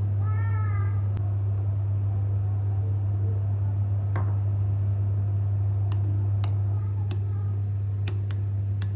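A steady low hum, with a short tonal sound just after the start and a few sharp light clicks scattered through, more of them near the end.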